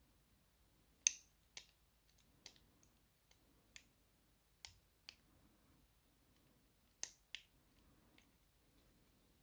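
Sharp, irregular clicks and taps of a pin-tumbler lock cylinder and small tools being handled while the lock is taken apart, the loudest about a second in and again about seven seconds in.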